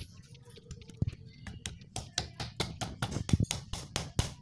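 A run of sharp metallic clicks and taps from hands and tools working on a Suzuki Satria FU motorcycle engine's cylinder head. The clicks are sparse at first, then come at about four a second from about a second and a half in.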